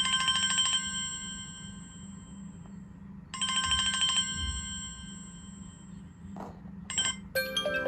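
Alarm clock bell rung in two short bursts of rapid strokes about three seconds apart, each left to ring out afterwards. Near the end a melodic chiming alarm tune begins.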